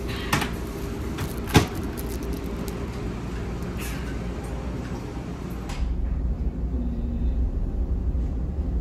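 Steady low drone of a car ferry's engines under way, with two sharp knocks in the first two seconds. About six seconds in, the higher hiss drops away abruptly and the low drone grows louder.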